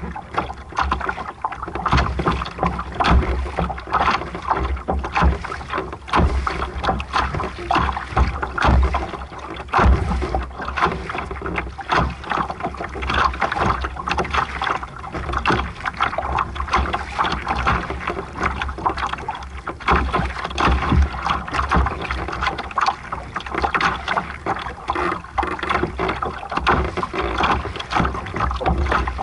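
Water splashing and rushing along the hull of a small sailing boat under way, with wind gusting on the microphone.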